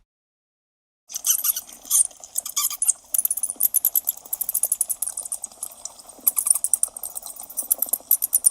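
Rapid, high-pitched squeaking and chittering of a small animal, typical of mice, starting about a second in and continuing in dense irregular runs of many squeaks a second.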